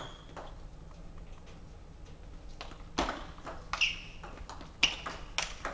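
Table tennis ball clicking off bats and bouncing on the table in a short exchange of about four quick hits, starting about three seconds in.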